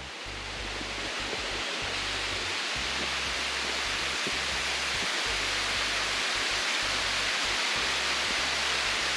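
Waterfall rushing: a steady noise of falling water that grows a little louder over the first few seconds, then holds even.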